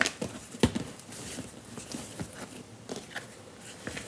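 Plastic dough scraper cutting through bun dough and knocking on a countertop: a few sharp knocks in the first second, then lighter, irregular taps and scrapes.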